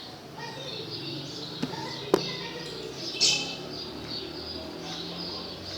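Small birds chirping repeatedly in the background, with one sharp click about two seconds in.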